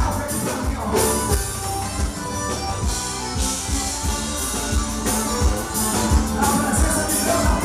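Forró band music, an instrumental passage with no singing and a steady, regular beat.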